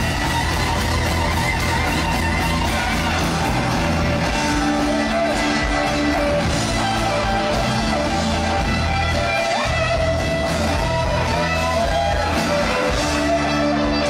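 Rock band playing live: electric guitars over drums, with a lead line that slides in pitch.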